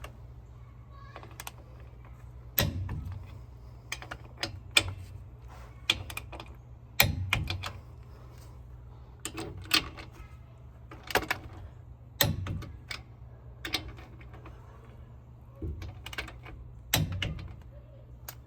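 Torque wrench ratcheting and clicking as the carrier bearing cap bolts of a GM 10-bolt rear differential are torqued to 60 ft-lb. Four sharp clicks, each with a low knock, come about every four to five seconds as each bolt reaches torque, with lighter ratchet ticks between them, over a steady low hum.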